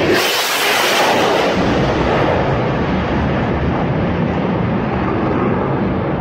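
Fighter jet's engine roar as it flies low overhead: a loud, sudden onset with a hissing, crackling edge for the first second and a half, then a steady heavy rumble as it moves away.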